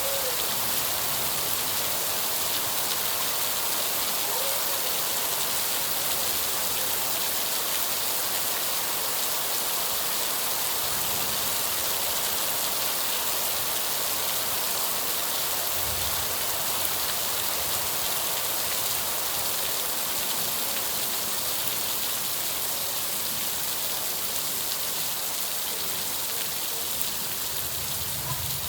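Steady rain falling, a dense even hiss of drops on surfaces.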